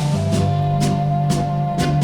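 Instrumental accordion dance-band music from an old record: accordion holding melody notes over a steady bass, with a beat of about two strokes a second.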